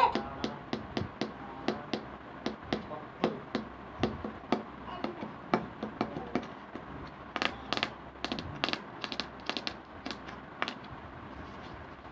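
Quick, irregular sharp taps by hand, about three to four a second, with a few louder, sharper ones a little past the middle.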